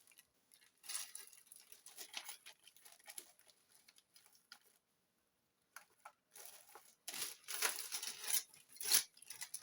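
Hands handling and rummaging through small objects on a workbench: scattered rustling and light clicks. After a short pause about five seconds in, a busier stretch of rustling runs near the end.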